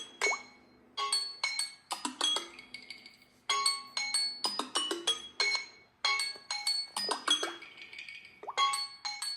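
Tablet alarm tones ringing: a quick run of bright, chime-like mallet notes that repeats about every two and a half seconds.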